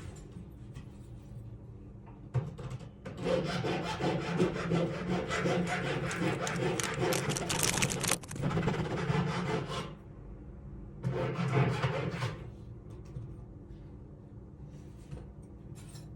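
Rasping rub of a hand tool worked against a workpiece, in a long spell of several seconds and then a shorter one, over a steady low hum.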